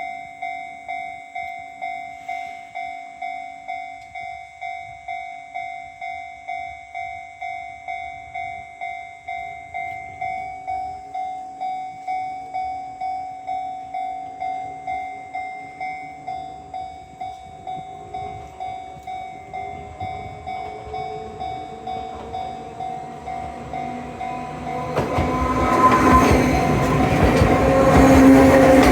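Japanese railway level-crossing warning bell dinging steadily at about two strokes a second. About 25 seconds in, an Enoshima Electric Railway (Enoden) train reaches the crossing and passes loudly, its wheels rattling and squealing over the rails.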